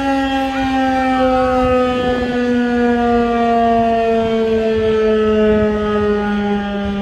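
Federal Signal 2001-SRNB outdoor warning siren winding down at the end of its test signal, its loud steady tone sliding slowly lower in pitch.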